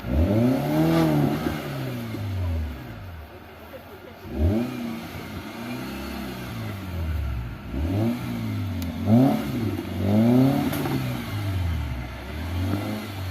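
Modified Maruti Gypsy's four-cylinder petrol engine revving up and falling back again and again, in about seven throttle surges a second or two apart.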